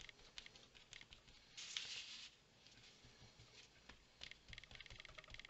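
Faint, irregular dabbing taps of a small foam disc pressed onto a paper tag, with a brief hissing swish about a second and a half in.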